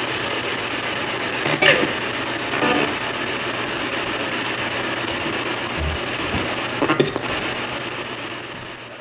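Steady hiss of background noise, with a few brief, faint sounds about one and a half, two and a half and seven seconds in.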